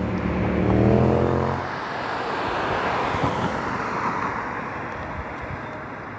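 An engine note with a rising pitch for the first second and a half, cut off abruptly. It is followed by the rush of an Airbus A321neo jet landing, its pitch sinking as it goes by and its sound slowly fading.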